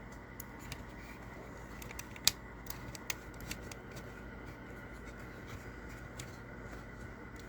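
Scattered light clicks and taps from small objects being handled, with one sharper click a little over two seconds in, over a faint steady background hum.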